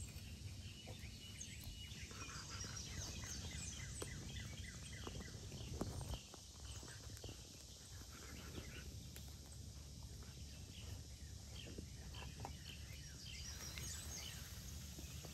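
Outdoor ambience of songbirds chirping, short repeated calls, over a steady low rumble, with scattered faint clicks and taps, the loudest about six seconds in.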